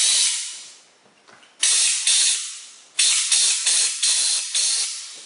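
Central Pneumatic pneumatic brake fluid bleeder hissing loudly as its trigger is pulled: compressed air rushes through the venturi to draw a vacuum in the fluid container. The hiss comes in three bursts, starting at once each time and fading away; the second starts about a second and a half in and the third about three seconds in, fluttering as it fades.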